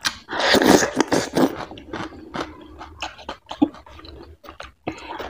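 Close-miked chewing of a handful of fatty mutton curry with millet dhido. It is loudest in the first second and a half, then goes on as softer, scattered chewing clicks.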